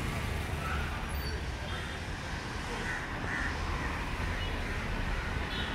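City street traffic: a steady low rumble of passing cars and motorbikes, with a few short high calls or squeaks on top.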